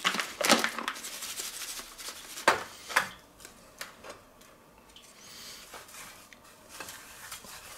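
Dry barbecue rub being sprinkled from a paper bag and rubbed by hand onto a rack of raw pork spare ribs in a stainless steel tray. A few sharp rustles and taps come in the first three seconds, then softer rubbing.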